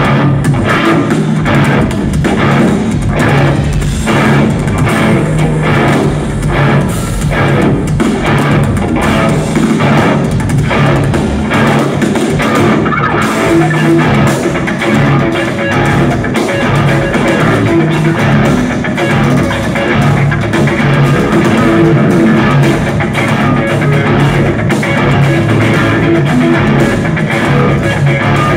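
Live band playing loud instrumental progressive metal: two electric guitars, bass guitar and drum kit, continuous throughout.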